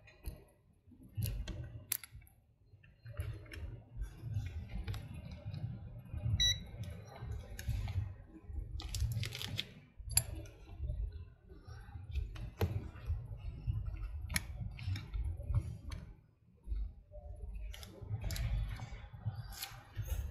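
Scattered sharp clicks and knocks as a handheld digital multimeter and small tools are handled and set down on a rubber work mat, over a steady low rumble. A brief high beep sounds about six seconds in.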